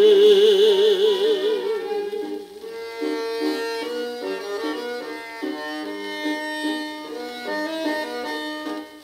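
Music from a 1959 Japanese popular song record playing on a turntable, in the instrumental passage after a sung line. It opens on a long held note with wide vibrato that fades after about two seconds, then a melody moves in steps over sustained chords, with a brief drop in level near the end.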